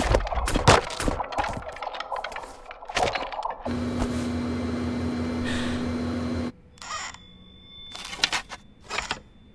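Light clattering knocks, like small objects dropping, then a steady mechanical hum with one held low tone for about three seconds that cuts off suddenly. A few soft clicks follow in the quiet.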